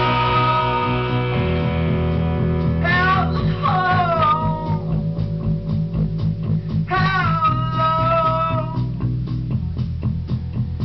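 Live rock band playing: electric guitars, bass guitar and drums, with a man singing drawn-out, gliding phrases over them.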